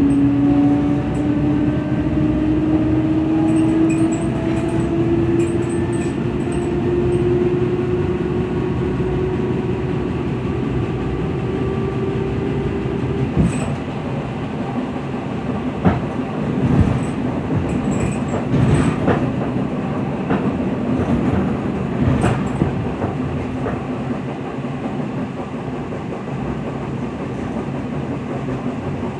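EN57 electric multiple unit heard from inside the carriage while under way: its traction motor whine rises steadily in pitch as the train picks up speed, then stops about halfway through as power is shut off. After that the running gear rumbles on, with a run of sharp knocks as the wheels cross rail joints.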